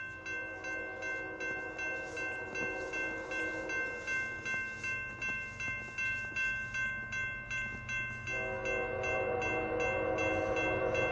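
Railroad grade-crossing bell ringing steadily, about two and a half strokes a second. An approaching diesel freight locomotive's horn sounds a long blast over the first few seconds and another from about eight seconds in, with a low rumble from the train growing near the end.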